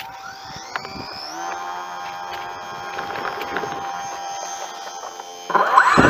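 RC model airplane motor spooling up over the first second and a half to a steady high whine as the plane takes off. About five and a half seconds in, a much louder rushing noise starts abruptly: the camera plane's own propeller starting up right by the microphone.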